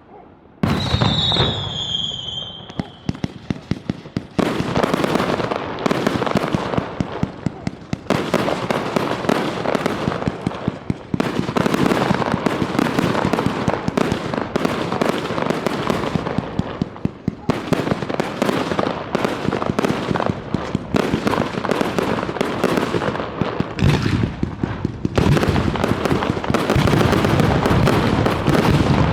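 Fireworks display: a whistle falling in pitch about a second in, then dense rapid crackling and bangs of bursting shells that go on almost without a break.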